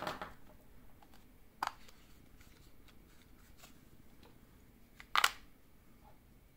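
Small plastic items being handled during an unboxing: a rustle and click at the start, a sharp click about a second and a half in, and a louder snap about five seconds in, with faint ticks of handling between.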